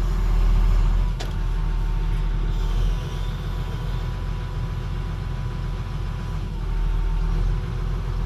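Excavator's diesel engine running steadily, heard from the operator's seat, with a faint thin steady whine over it and a single click about a second in.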